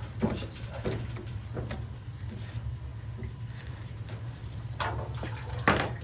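Water running out of the water heater's drain through the brass ball valve and hose, with a few short knocks of the fittings being handled, the loudest near the end, over a steady low hum.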